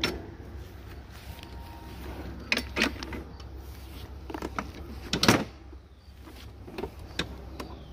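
Clicks and clunks from the folding handle of a Greenworks Pro 60V cordless lawn mower as it is unlatched and folded down for storage, with a louder knock about five seconds in.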